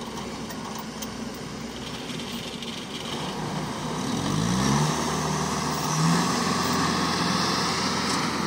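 Engines of farm machinery running steadily. A little after four seconds in, one engine revs up, its pitch rising, and then holds at the higher speed, louder.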